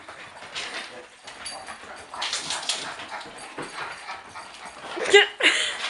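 A bulldog playing with a rabbit, whining and yipping. There is a noisy scuffle about two seconds in, then, loudest, a quick run of high whines that slide up and down in pitch about five seconds in.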